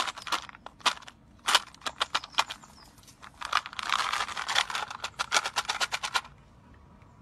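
Rapid clicking and kissing sounds made with the mouth to call a cat. They come in irregular bursts with short pauses, and one burst about four seconds in has a hiss under it.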